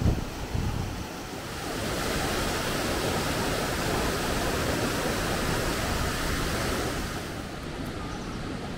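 Steady rush of falling water from a waterfall, growing louder about two seconds in and easing off near the end.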